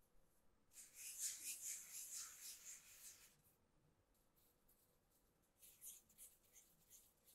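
Flour sprinkled from the fingers onto a cutting board, a soft hissing patter for a couple of seconds, then fingertips rubbing the flour across the board in short scratchy strokes near the end.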